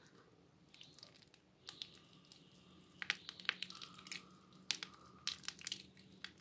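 Soaked bar soap being crushed and squeezed in gloved hands: faint, irregular soft crunching and squishing crackles, bunched about three seconds in and again about five seconds in.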